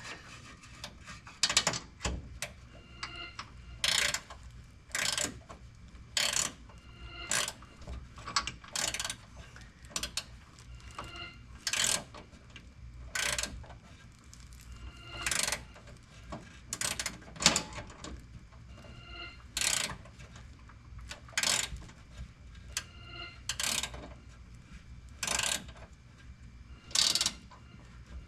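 Hand ratchet wrench tightening bolts: a long run of short ratcheting strokes, one every second or two, each a quick burst of pawl clicks.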